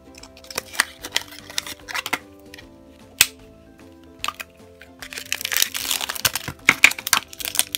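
Clicks and taps of a small plastic toy lunchbox being unlatched and opened, then from about five seconds in, foil blind bags crinkling as they are lifted out and handled, all over soft background music.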